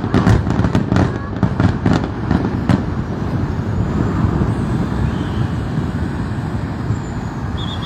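Aerial fireworks bursting in a rapid run of bangs and crackles for about the first three seconds, giving way to a steady rumble of road traffic.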